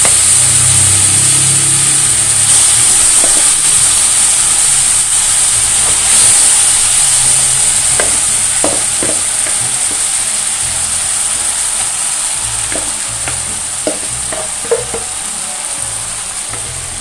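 Marinated raw banana slices sizzling loudly in hot oil as they are shallow fried in a non-stick pan. The sizzle is a steady hiss that eases slightly over time. There are a few light taps in the second half as more pieces go into the pan.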